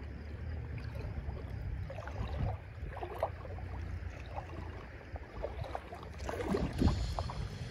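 Moving river water and wind on the microphone: a steady low rumble with faint, scattered splashes and ticks.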